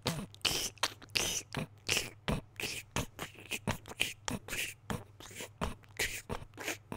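Scratching on a head: a run of short, rough scraping strokes, about three a second and uneven in strength.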